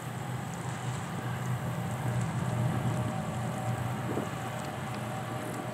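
Distant diesel freight train crossing a steel truss bridge: a steady low rumble from the locomotives and rolling cars, mixed with wind noise.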